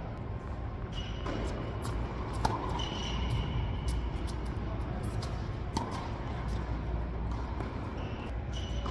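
Tennis doubles rally on an indoor hard court: a few sharp knocks of racket on ball and ball bouncing, with short high squeaks of shoes on the court, over a steady low hum.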